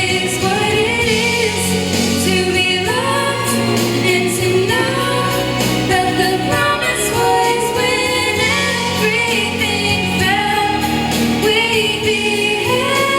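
Choir singing a slow song with musical accompaniment, holding long drawn-out notes.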